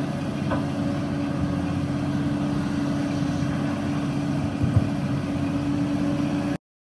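Heavy-equipment diesel engine running steadily with an even hum over a low rumble, with a brief low thump near the end. The sound cuts off suddenly just before the end.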